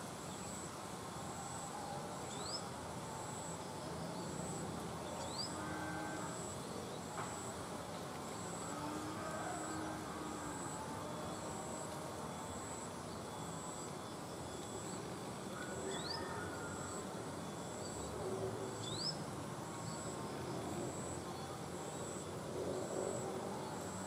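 Outdoor ambience led by an insect's high-pitched, evenly pulsed call repeating a little faster than once a second, over a steady low hiss. Four short, thin chirps sliding upward come from a bird, twice near the start and twice in the second half.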